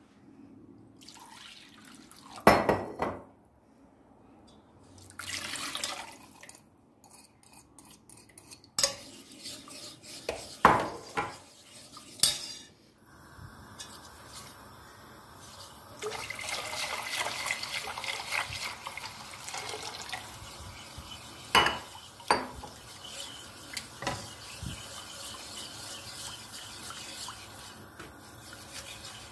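Dishes and cutlery clinking and knocking. About halfway through, a steady rush of running tap water starts, with more clinks over it, as in washing up at a sink.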